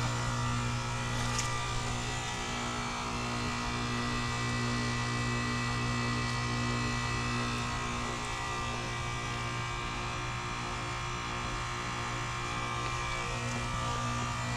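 2018 Carrier Sentry heat pump outdoor unit running a defrost cycle: its compressor hums steadily with several steady tones over it. One of the tones fades out for a few seconds in the middle and comes back near the end.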